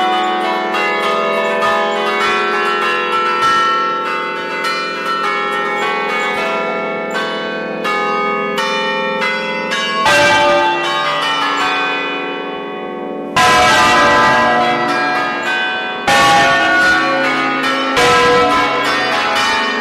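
Church tower bells swung and rung in the Roman style (alla romana), several bells striking in quick, overlapping succession with long ringing tones, heard close up from inside the belfry. The strikes thin out about halfway through, then louder strikes come in from about two-thirds of the way.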